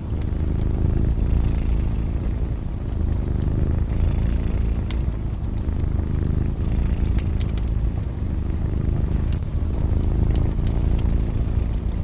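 Cat purring close up: a steady low rumble. Over it, a wood fire crackles with scattered small pops.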